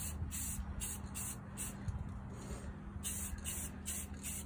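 Rust-Oleum 2X silver aerosol spray paint hissing from the can in a series of short bursts, with a slightly longer burst about three seconds in, as the silver colour coat goes onto a plastic model car body.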